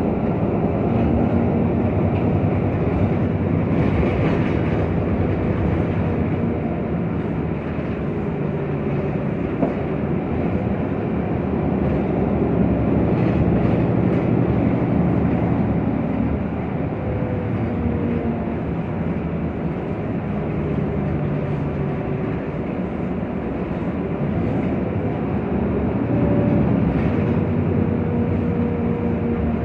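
Ride noise inside a VDL Citea LLE city bus under way: its Cummins ISB6.7 natural-gas engine and ZF EcoLife automatic drivetrain running, a steady rumble with an engine note that rises and falls a few times as the bus pulls along.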